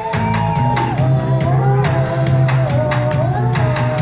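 Live reggae band playing: a heavy bass line, a steady drum-kit pattern and a high melody held in long notes that slide from one pitch to the next.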